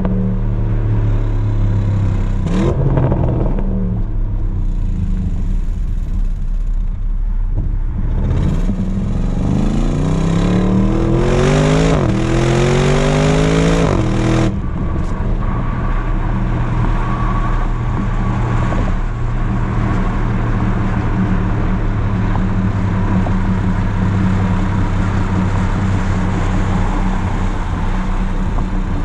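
Audi RS Q8's twin-turbo V8 exhaust, with its large resonator deleted, heard close to the tailpipe while driving. Engine speed falls at first, then from about eight seconds in a hard pull rises in pitch until it cuts off abruptly near the middle, after which the exhaust settles into a steady low drone at cruising speed.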